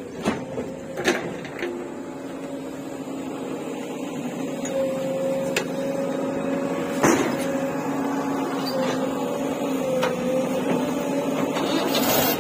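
Diesel engine idling with a steady hum that grows louder through the first half, with a few sharp knocks near the start and one about seven seconds in.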